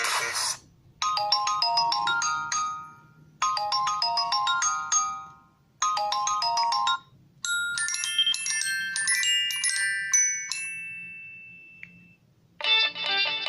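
LG K40S phone ringtone: a short melody of bell-like notes played three times with brief pauses, then a higher run that ends on a long held note fading away. The previous ringtone cuts off at the start, and the next one, a strummed guitar-like tune, begins near the end.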